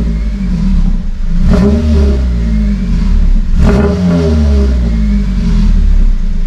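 Honda Civic Type R FN2 engine idling and blipped twice, revs rising and falling about two seconds apart, heard through a Japspeed cat-back exhaust with the rear bumper off.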